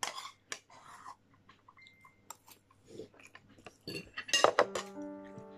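Light clinks and taps of cutlery and dishes on a plate during a meal, with a louder clatter about four and a half seconds in. Sustained music comes in near the end.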